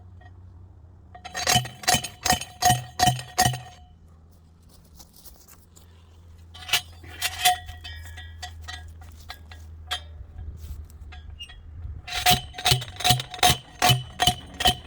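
Rapid metal-on-metal or metal-on-stone clinks from a metal tool being struck repeatedly, in two runs of about seven quick strikes, each with a short ringing tone. Fainter scattered clinks fall between the runs, over a steady low hum.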